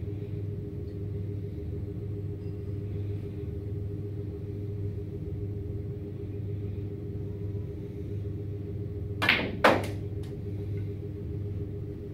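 A snooker shot being played: two sharp clicks about half a second apart, from the cue striking the ball and the balls colliding, near the end. A steady low room hum runs underneath.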